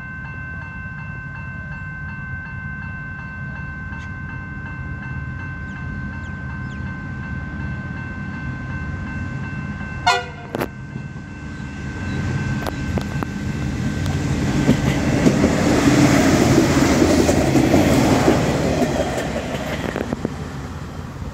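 A two-car diesel railcar accelerating away from a station and running past. Its engine hums steadily with a thin high whine at first, with a short sharp sound about ten seconds in, then a rushing noise of engine and wheels builds, is loudest about two-thirds of the way through, and eases off as it goes by.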